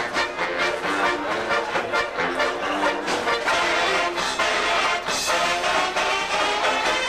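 Mummers string band playing live: banjos strumming a quick, even rhythm while accordions carry the tune.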